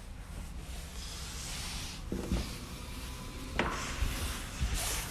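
Handling noise: a phone's microphone rubbing against a nylon puffer jacket, with a few dull knocks in the second half.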